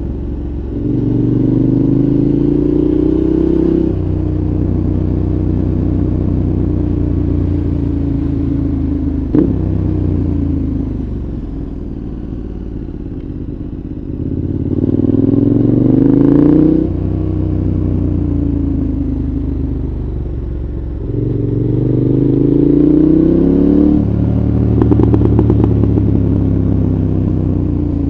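A 2014 KTM 1190 Adventure's 1195 cc V-twin running through a Giannelli exhaust with a dB killer, heard from onboard. Three times the revs climb under throttle and then drop sharply, as at a gear change. Between the pulls the revs are steadier or ease off slowly. A single sharp click comes about nine seconds in.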